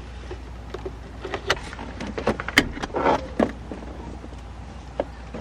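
Scattered clicks, knocks and rustles of a handheld car vacuum's plastic parts being handled and fitted together, with the motor not running.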